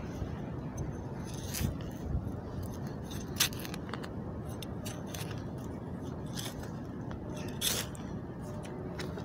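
Hand weeding tool (onkruidsteker) scraping and crunching into crumbly soil while digging out couch grass roots: a handful of short, sharp scrapes, the loudest about a third of the way in and again about three-quarters through, over a steady low background rumble.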